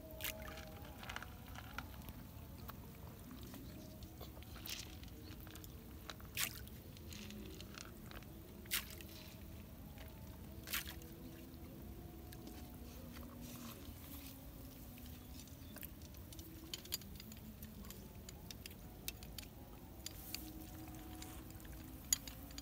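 Quiet outdoor background with scattered small sharp clicks and soft wet squishes as fishing bait is handled and kneaded by hand.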